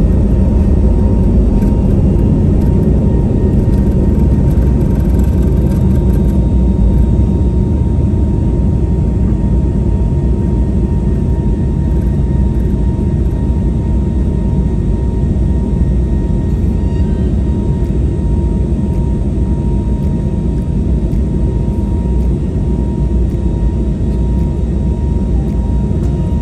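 Airbus A321neo jet engines heard from inside the passenger cabin: a steady, loud, low rumble with a faint steady whine above it.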